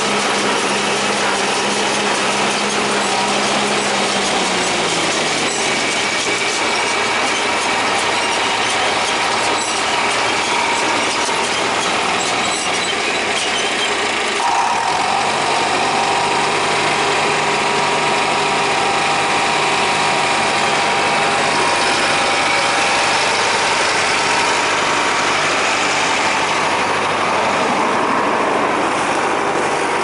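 John Deere 3020 tractor engine running under load while pulling a John Deere 336 small square baler, with the baler's machinery clattering along with it. The engine pitch drops about four seconds in and comes back up about halfway through.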